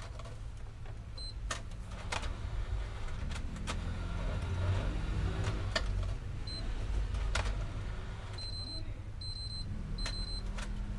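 Several short high-pitched electronic beeps, a few of them in a row near the end, among sharp clicks over a low steady rumble.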